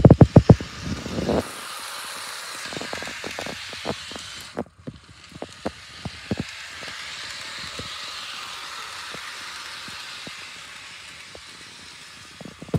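Athearn Blue Box HO-scale GP9 model locomotive running on sectional track, its wheels clicking over the rail joints. A rapid run of loud clicks in the first second and a half, then scattered clicks, over a steady whir from the running model.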